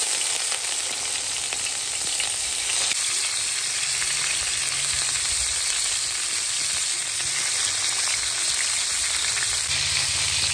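Pieces of fish sizzling in hot oil in a frying pan as more pieces are laid in: a steady hiss with fine crackling spatters.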